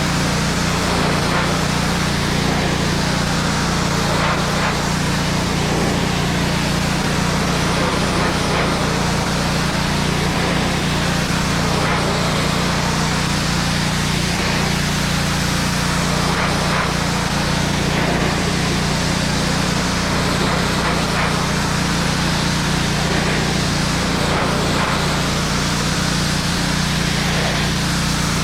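Pressure washer running steadily: a motor hum under the hiss of the water jet hitting the fence boards. The hiss shifts in tone in slow sweeps every couple of seconds.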